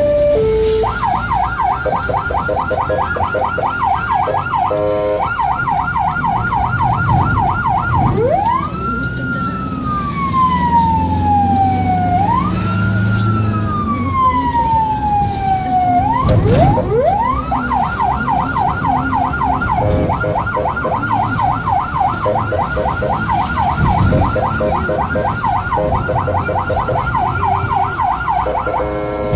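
An ambulance siren heard from inside the cab of a 2015 Fiat Ducato ambulance, over the van's engine and road noise. It switches from a brief two-note hi-lo at the start to a fast yelp, then gives two slow wails, each rising quickly and falling off over about four seconds, near the middle, then goes back to the fast yelp.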